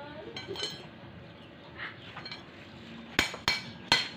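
A hammer striking steel: three sharp ringing taps starting about three seconds in, after a few seconds of faint small clinks.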